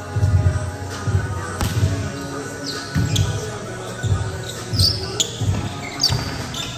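A volleyball bouncing and being hit on a gym floor, with repeated thuds and a few sharp smacks, along with short high squeaks. Music plays in the background.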